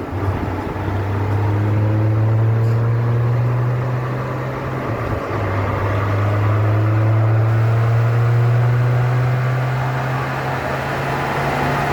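A vehicle running on a chassis dynamometer: a strong, steady low drone with fainter tones above it that rise slowly, dipping briefly about halfway through.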